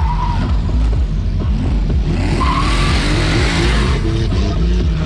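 Two drift cars, an orange Nissan Silvia S15 and a red BMW, sliding by in tandem: engines held at high revs with tyres skidding and squealing. The tyre noise swells about two seconds in.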